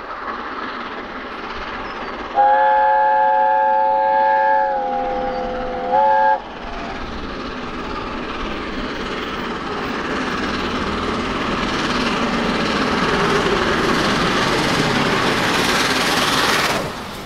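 Three-cylinder A1 Pacific steam locomotive 60163 Tornado running through, its exhaust and rolling noise growing steadily louder as it approaches and passes. About two seconds in, a loud multi-note train warning chord sounds for about two seconds, dipping slightly in pitch at the end, followed by a short second toot about six seconds in.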